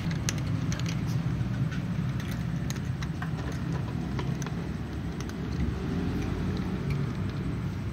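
Cats eating dry kibble from plastic bowls and trays: a scatter of small, crisp crunching and clicking sounds over a steady low hum.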